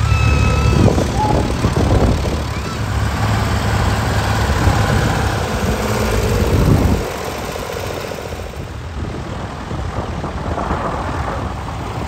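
Vintage tractor engines running as tractors drive past. A heavy, low engine sound drops away suddenly about seven seconds in, leaving a lighter, quieter engine sound.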